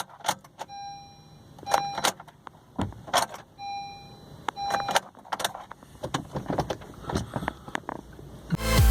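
Car dashboard chime ringing in two pairs of short beeps among clicks and jangling keys as the ignition is tried on a car that won't start, which the driver thinks has a dead battery. Electronic music comes in at the very end.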